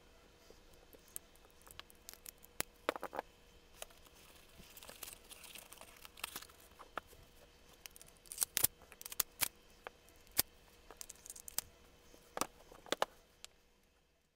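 Sharp metal clicks and short scrapes of pistol parts being handled: a Glock 22 slide, its recoil spring and the guide-rod laser being fitted back onto the frame. The clicks are scattered, bunched about three seconds in, around eight to nine seconds in, and again near the end, before the sound fades out.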